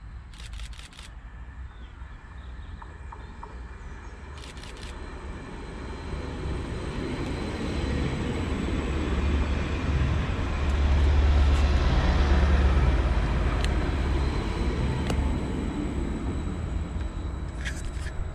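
Class 755 Stadler FLIRT bi-mode multiple unit running on diesel as it approaches and passes close by, a deep engine rumble and wheel-on-rail noise. It builds from about a third of the way in, is loudest just past the middle as the train goes by, then fades as it draws away.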